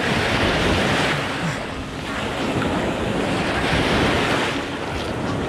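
Small shore-break waves washing up the sand at the water's edge, swelling twice, about a second in and again near four seconds in, with wind buffeting the microphone.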